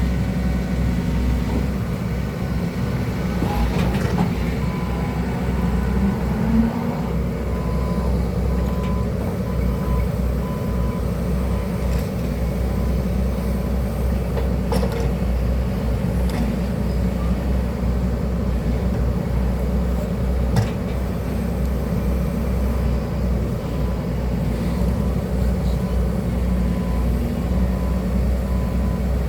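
Hydraulic excavator's diesel engine running steadily under load, with a few brief knocks along the way.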